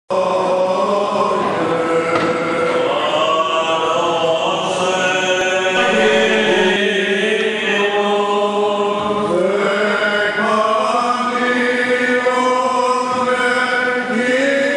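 Greek Orthodox Byzantine chant: male voices singing a slow, winding melody over a steadily held low note.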